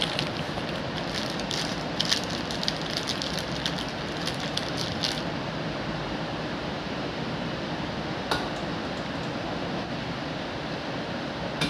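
A quick run of light clicks and clinks in the first few seconds, then two single clicks later on, from small fittings being handled, over a steady background hiss.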